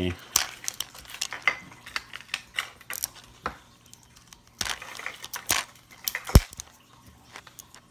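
Fingers picking and prying at the seam of a plastic Zuru 5 Surprise Mini Brands capsule ball: irregular small plastic clicks, creaks and scratches, with one sharper click about six and a half seconds in.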